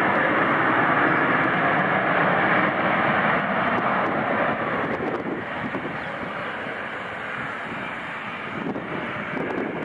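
Boeing 737-800's CFM56 jet engines running at high power on the landing roll, a loud rushing roar that drops off about halfway through as the engines spool down.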